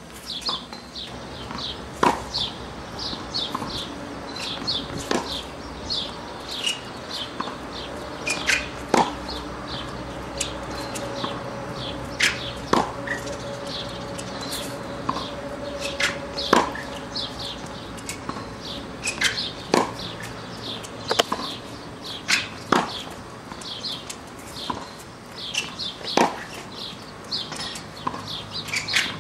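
Tennis ball struck by a racquet, a sharp pop every few seconds, sometimes paired with a bounce. Small birds chirp rapidly throughout.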